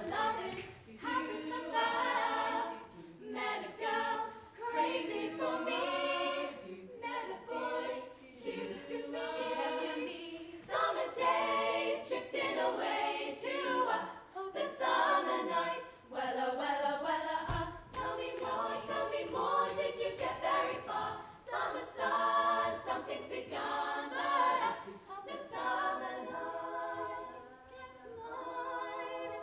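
All-female youth a cappella group singing live in several-part harmony, with no instruments; the chords shift every second or so.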